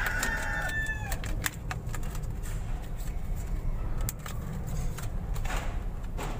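A rooster crows in the background, its call ending about a second in. Then come scattered clicks and crackles of card and plastic blister packaging being handled and opened.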